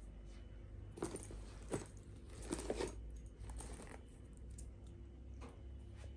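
A black leather sling bag being handled: short rustles of leather and light clinks of its metal strap clips and charm, a few of them in the first three seconds and one more about five and a half seconds in.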